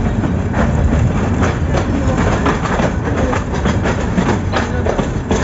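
Passenger train running: a steady low rumble with irregular clacking of the wheels on the track.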